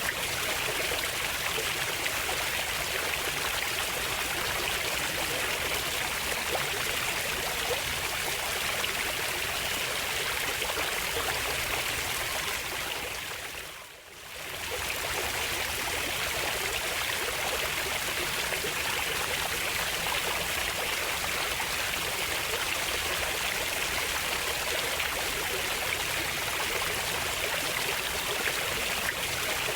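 Running water with a steady, even rush. It fades down briefly about halfway through, then comes back.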